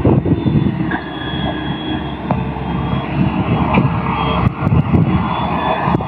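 Diesel engine of a heavily overloaded truck working hard under load, a steady low rumble with a fast pulsing beat.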